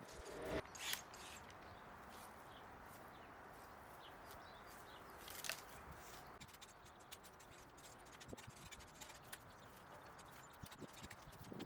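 Faint garden work: a few sharp snaps or clicks, about half a second to a second in and once more about five and a half seconds in, over a low steady outdoor background.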